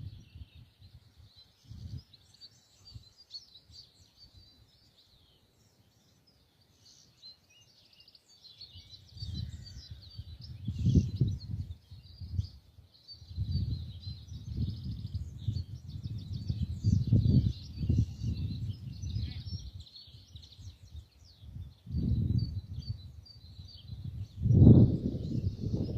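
Many small birds chirping at once, with quick high calls overlapping throughout. Over them come surges of low rumbling noise. These are nearly absent for the first several seconds, then come and go loudly from about nine seconds in and are the loudest sound.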